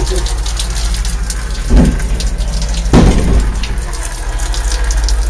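A stream of urine splashing steadily into a portable toilet bowl, with two brief louder bursts about two and three seconds in.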